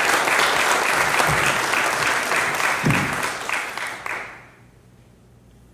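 Congregation applauding, a dense patter of many hands clapping that fades out about four seconds in.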